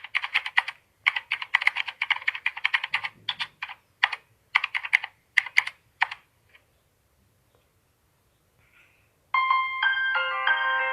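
Rapid keyboard typing: quick runs of sharp clicks in bursts for about six seconds, then a pause. Near the end a chiming, ringtone-like melody starts.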